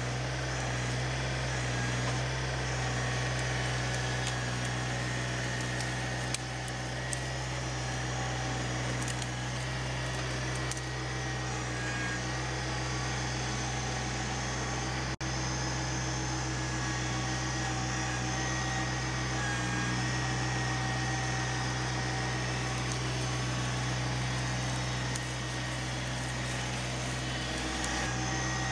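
LS MT125 compact tractor's small three-cylinder diesel engine running steadily under load while the front-loader grapple lifts a bundle of brush and the tractor drives off with it.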